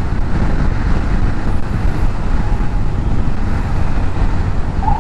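Motorcycle riding in traffic: engine and wind noise on a helmet-mounted mic. A faint steady tone comes in about halfway, and a short siren whoop sounds near the end.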